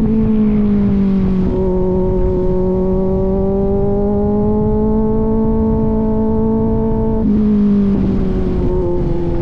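Kawasaki Z900's inline-four running through an aftermarket AR exhaust while riding, its note climbing slowly for several seconds, then dropping in pitch about seven seconds in and again near the end, over a steady rush of wind.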